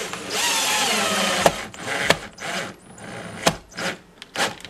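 DeWalt 14.4-volt cordless drill driving a screw into a wooden window frame: the motor whines for about a second, its pitch sagging slightly as the screw bites in, then stops with a sharp click. Several short clicks and knocks follow.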